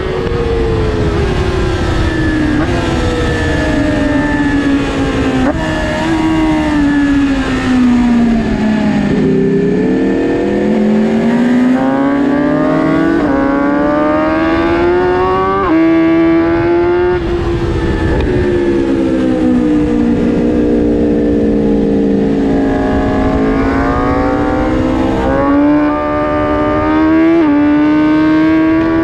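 2022 BMW S1000RR inline-four engine at track speed, heard onboard. Its pitch falls for several seconds, then climbs under throttle, and does so twice, with sudden steps in pitch at gear changes, over a steady wind rush.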